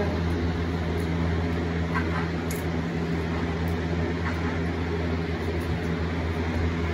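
Steady low mechanical hum of a running appliance, unchanging throughout.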